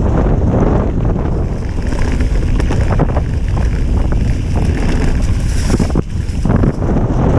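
Wind buffeting the microphone of a camera on a mountain bike going downhill, over a low rumble, with many short knocks and rattles as the bike runs over the trail. The noise dips for a moment about six seconds in.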